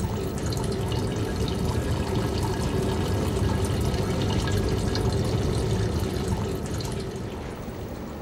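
Freshly distilled Calvados running in a steady thin stream from a copper alembic's outlet, fading away near the end.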